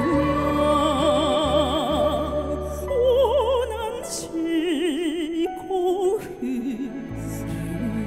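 A woman singing a slow song into a microphone, holding long notes with heavy, wide vibrato, over instrumental accompaniment with sustained low notes.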